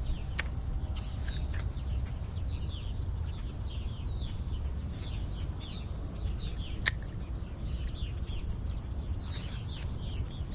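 Small birds chirping over and over in quick falling notes, over a steady low rumble. Two sharp clicks, a small one about half a second in and a stronger one about seven seconds in.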